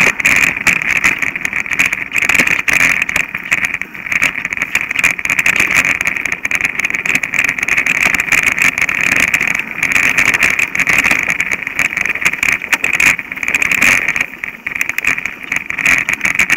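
Mountain bike rolling fast over a rough dirt trail, heard from a camera riding on the bike or rider: a steady rushing noise with frequent rattles and knocks as it goes over bumps.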